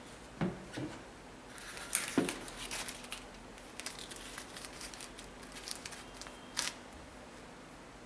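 Sneakers being handled and an insole pulled out of one: two soft thumps near the start, then a couple of seconds of scraping and rustling, a few light taps, and a sharp click near the end.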